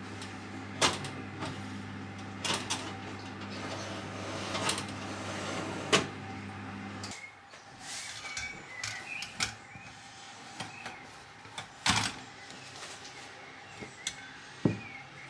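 Fan oven humming steadily while a metal tart tin is pulled off the oven rack with a pot holder, with several sharp metallic clanks. The hum cuts off about seven seconds in, and the tin is then set down on a metal wire cooling rack with a loud clank.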